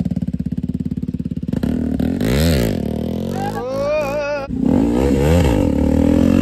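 Motorcycle with an aftermarket slip-on exhaust idling with a fast, even pulse, then revving and pulling away, the engine pitch rising and falling through the gears as the front wheel lifts into a wheelie. A person shouts about halfway through.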